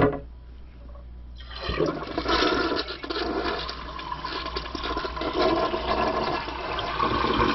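Toilet flushing with its tank lever broken, worked by hand inside the tank. A click at the start, then about a second and a half in, a steady rush of water draining from the tank into the bowl.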